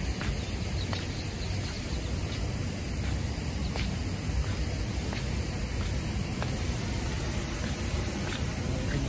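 Pop-up lawn spray sprinklers running: a steady hiss over a strong low rumble, with a few faint, brief high-pitched sounds scattered through.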